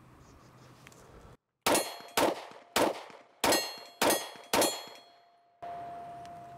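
Six quick pistol shots from a 9mm Taurus GX4 XL, about half a second apart, each followed by the ring of a hit steel target. A steady ringing tone lingers near the end.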